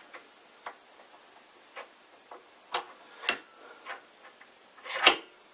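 A steel lathe dead center being handled and pushed into the tailstock quill's Morse taper 2 socket: a few scattered, irregular light metal clicks and taps, with the loudest click near the end.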